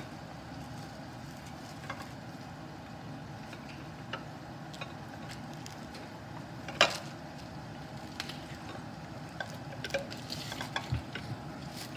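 Potato fries deep-frying in oil in a kadai over a gas flame: a steady sizzle with scattered pops and crackles, the loudest pop about seven seconds in.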